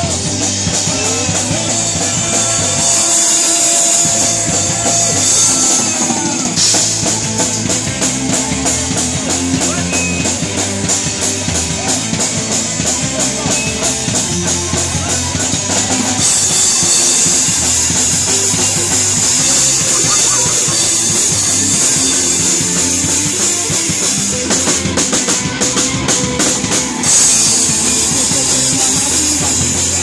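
Live hardcore punk band playing loud and fast: electric guitar and bass over a drum kit with constant cymbal crashes and drum hits.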